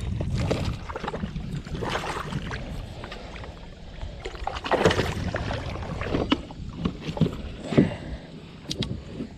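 A hooked bass splashing at the surface beside a kayak as it is reeled in, then several sharp knocks and thumps against the kayak as the fish is swung aboard and flops about.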